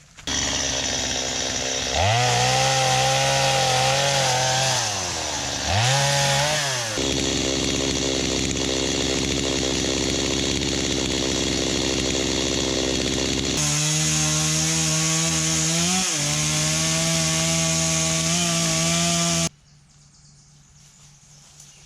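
Chainsaw running at high speed and cutting wood, its pitch sagging and recovering as it bogs under load. It comes in several abruptly cut segments and stops suddenly near the end.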